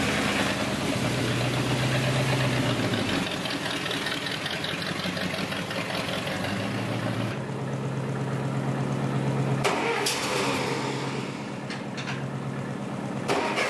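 Hot-rod Ford Model A coupe's flathead V8 running and pulling away, its pitch shifting in the first few seconds as the car moves off. After a cut about halfway through, a steady engine hum follows, with a few sharp clicks.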